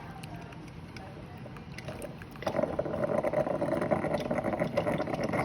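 Mr. Coffee drip coffee maker brewing: a steady hiss, then about two and a half seconds in a louder crackling, gurgling sputter starts as hot water is pushed up and through to the grounds.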